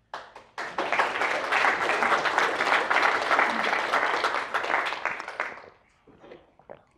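Audience applauding. It swells in within the first second, holds steady for about five seconds and dies away near the end.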